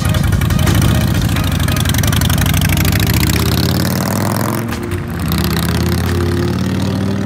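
Group of motorcycles riding slowly past in a line, several engines running at once with some rising and falling revs. Music comes in over them in the second half.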